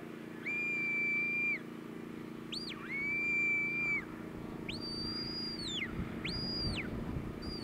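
A sheepdog handler's whistle commands to a working dog: five whistles, mostly long level notes, with a short rising note near the middle. The later two are pitched higher. A steady low hum lies underneath.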